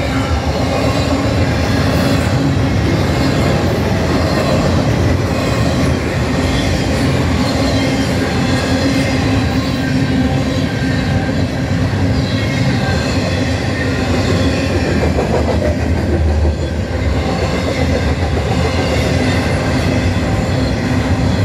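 CN double-stack container freight train passing close by: a loud, steady rumble of the cars' steel wheels running over the rails, with no break.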